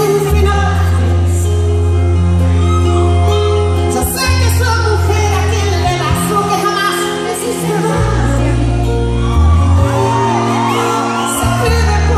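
Live concert music: a female lead singer singing a Spanish-language ballad over a band, with sustained low bass notes that change every second or two.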